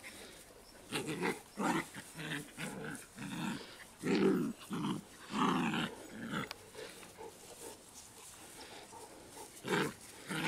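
Dogs growling in short, repeated bursts during a playful tug-of-war over a rope toy. The growls come thickest in the middle, pause, then start up again near the end.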